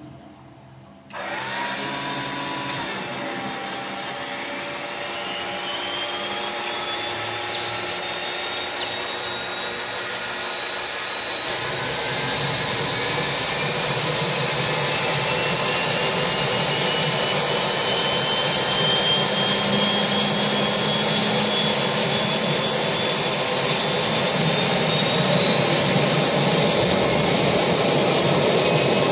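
Single-engine turboprop airplane starting up. About a second in the starter whine comes on suddenly and climbs steadily in pitch. About twelve seconds in a louder rush of engine noise joins it, and the engine keeps spooling up.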